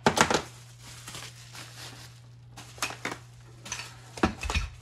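Loose metal gun parts (barrels, rods and small pieces) clanking as they are pushed around on a tabletop: a sharp clatter at the start, scattered clicks, then a cluster of knocks and a thud near the end.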